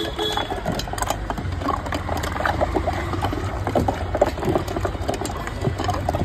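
Hand churner (madhani) spun back and forth between the palms in a steel pot of thick curd, a quick run of wet sloshing and small knocks as lassi is churned.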